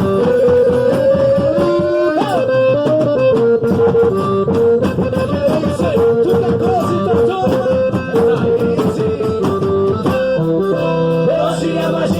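Quadrilha junina dance music playing loud, with guitar, a steady beat and a sustained melody line; the texture changes about ten seconds in.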